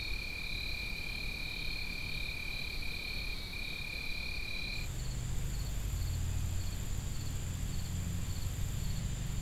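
Night insects trilling: two steady high-pitched trills at first, then about five seconds in a higher, thinner trill with a short chirp repeating about twice a second, over a low hum.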